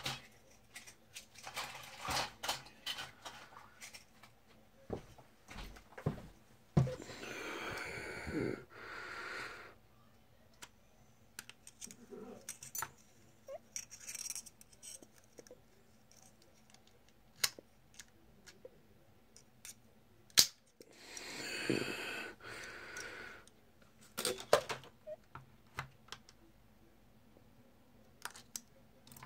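Handling noise from a split-open BMW key fob: scattered sharp clicks and rattles of small hard plastic and metal parts, with a few short scraping rustles.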